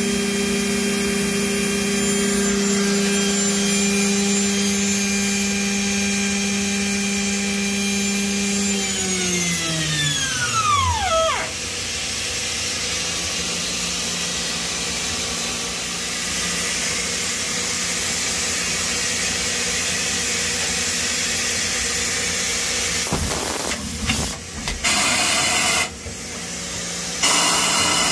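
Mazak Integrex 100-IV ST's milling spindle running at 12,000 rpm with a steady high whine. About nine seconds in it winds down, falling in pitch for a couple of seconds. After that the machine's steady running noise carries on, broken near the end by two loud rushes of noise.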